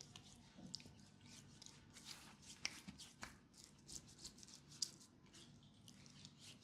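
Close-miked hands massaging a leg: quiet skin rubbing with an irregular run of soft, crisp clicks and taps, a few sharper ones near the middle.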